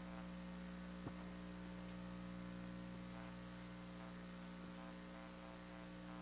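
Steady electrical mains hum in the recording, with one faint click about a second in.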